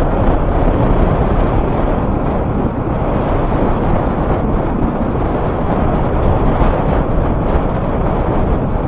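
Loud, steady wind noise buffeting the microphone on a moving motorcycle at road speed.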